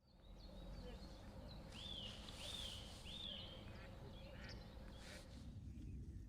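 A bird gives three short arching calls in quick succession, each rising then falling, about two seconds in, with a few fainter notes after. A low steady rumble runs underneath.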